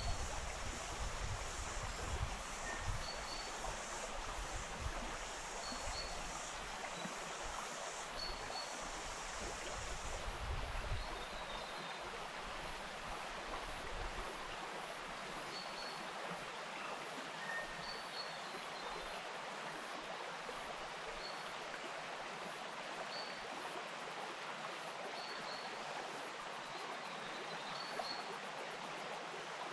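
Wainuitewhara stream flowing, a steady even rush of water. Short high chirps come every couple of seconds, and a low rumbling fades out about twelve seconds in.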